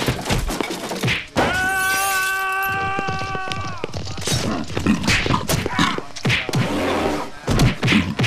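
Repeated thumps and knocks of bodies tumbling and landing on a floor and furniture. A long steady high note is held for about two seconds from about a second and a half in.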